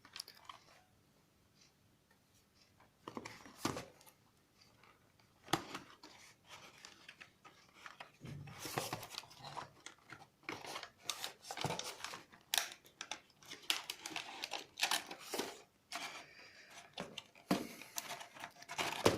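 Packaging and contents of a power bank box being handled: irregular rustling, crinkling and light clicks, starting about three seconds in and getting busier after about eight seconds.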